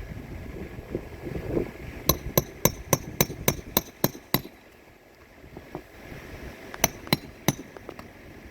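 Hammer driving nails during an asphalt shingle roof repair: a run of about nine quick strikes, roughly four a second, then a pause and three more strikes near the end.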